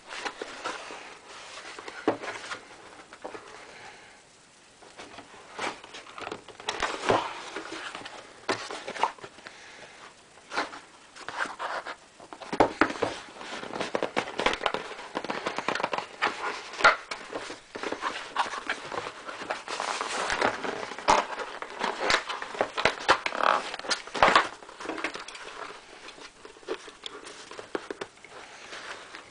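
Packaging being handled and pulled apart: irregular crinkling and rustling of packing material with many small clicks and knocks, easing off briefly a few seconds in.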